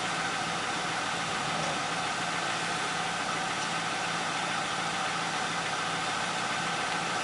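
2005 Ford Crown Victoria's 4.6-litre V8 idling steadily.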